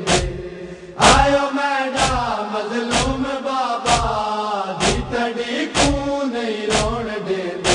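A group of men chanting a Punjabi noha (Shia lament) in unison, with a sharp beat about once a second keeping time for matam, the rhythmic chest-beating of mourning.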